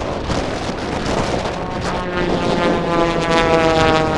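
A steady rushing noise, then from about halfway in, the engine drone of a pair of small propeller-driven aerobatic planes flying past overhead. The drone grows louder and slowly falls in pitch as they pass.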